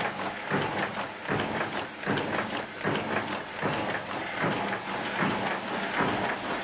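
Single-colour sheet-fed offset printing press running, a steady hum with a regular clatter of about two strokes a second as it cycles sheets through.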